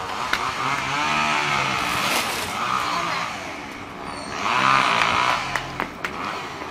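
Engine sound of a passing motor vehicle, swelling and fading, with a second, louder swell about four to five seconds in.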